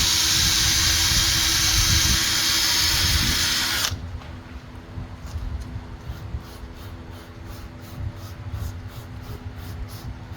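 Power drill spinning a sanding attachment against a plastic headlight lens, a steady whirring hiss that stops abruptly about four seconds in. After it stops, faint rapid ticking continues.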